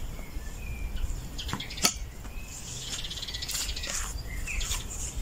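Small birds chirping now and then, with a few sharp strikes of a long-handled weeding tool chopping into turf and soil, the loudest about two seconds in.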